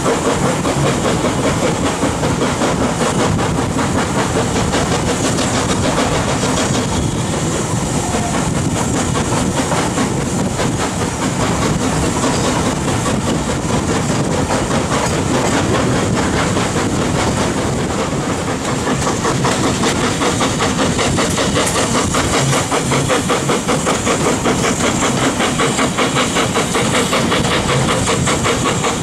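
BR Standard Class 4MT 4-6-0 steam locomotive working a train up a grade, its exhaust and the carriage wheels clattering over the rail joints, heard from a carriage window behind the engine. At one point the locomotive slips on the grade.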